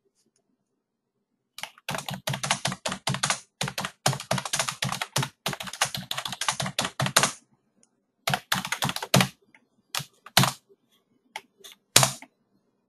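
Typing on a computer keyboard. A fast run of keystrokes lasts about six seconds, followed by a few short bursts and single key taps near the end.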